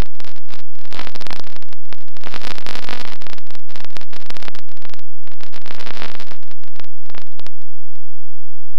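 Electric motor and propeller of a Bixler RC plane running under power with wind rush, picked up by the onboard camera's microphone, loud and distorted. The noise breaks off in a couple of short gaps, and near the end it mostly drops out into brief bursts.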